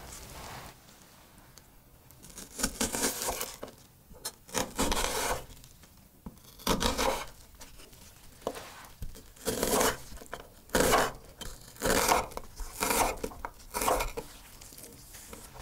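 Chef's knife slicing through a crisp onion and striking the board: a series of separate crunchy cutting strokes, coming about once a second and closer together in the second half.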